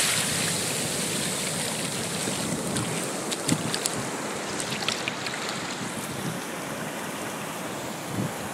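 Surf washing on the shore, a steady noise of waves, with light wind on the microphone and a few faint clicks around the middle.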